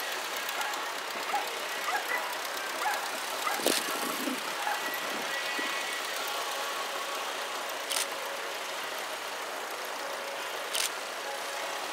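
Engines of several vintage tractors running at low speed a little way off, blended into a steady wash of outdoor noise, with three short sharp clicks.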